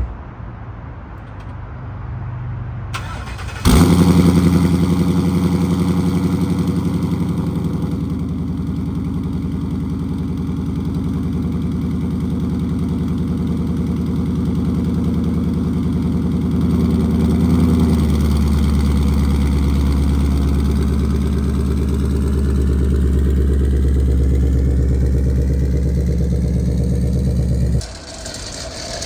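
Twin-turbo 2015 Mustang GT's 5.0 Coyote V8 starting: it fires with a loud flare about four seconds in and then settles into a steady idle. The sound drops off sharply near the end.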